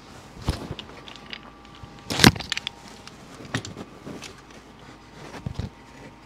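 Steel transmission shafts and gears of a 1972 Yamaha 250 MX being picked up and handled over the aluminium crankcase half: a few separate metal clicks and knocks, the loudest about two seconds in.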